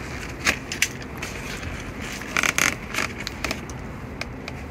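Box cutter slitting and tearing down the side of a cardboard shipping box: a series of sharp crackles and rasps from the cardboard, the loudest a little over two seconds in.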